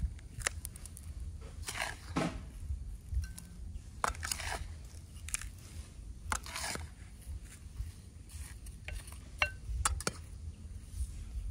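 Hand-work noises: irregular sharp clicks and light knocks, with brief rustling scrapes every couple of seconds, over a low rumble.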